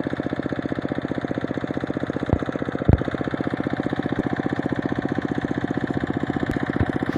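Small 3 hp single-cylinder diesel engine running steadily with a fast, even chugging beat while it drives a water pump. Two brief sharp knocks sound a little over two and three seconds in.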